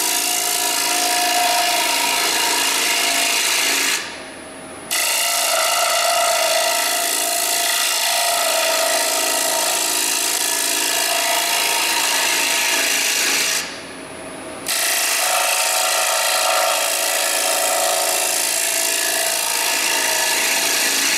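Carbide hollowing tool cutting the inside of a spinning wooden bowl on a wood lathe: a steady, loud rasping scrape. It drops away twice for about a second, about four seconds in and again about fourteen seconds in, then resumes.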